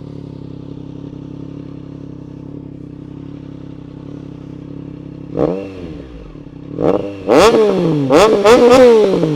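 Triumph Trident 660's inline three-cylinder engine, already warm, idling steadily through a DIY custom exhaust run without its dB killer, so it is louder than intended. About five seconds in the throttle is blipped once, then several quick revs follow near the end, each rising and falling in pitch.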